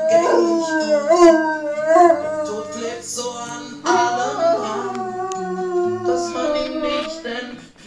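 Ridgeback dog howling along to a song playing in the room, in long howls that waver and slide in pitch, a new howl starting about four seconds in, over the song's steady instrumental backing.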